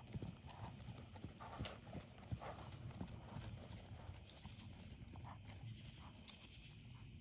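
Hoofbeats of a horse trotting on sand arena footing: soft dull thuds, plainer in the first few seconds and fainter after.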